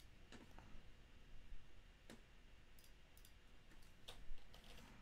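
Faint, scattered clicks and taps from computer input at a desk, a handful over a few seconds, the loudest about four seconds in.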